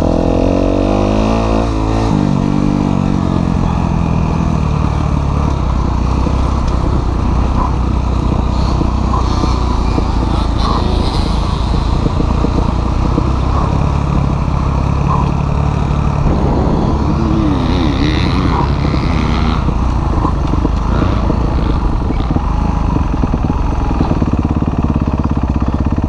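Kawasaki KX250F four-stroke single-cylinder motocross engine being ridden around a dirt track, its pitch rising and falling as the throttle is opened and closed. It settles into slower, steadier running near the end as the bike slows.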